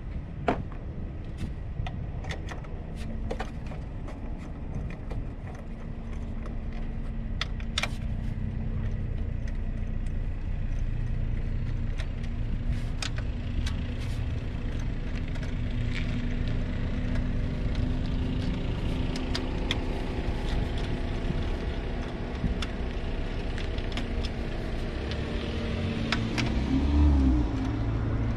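Metal hand tools clicking and clinking on bolts in a car's engine bay, over a steady low engine hum that swells briefly near the end.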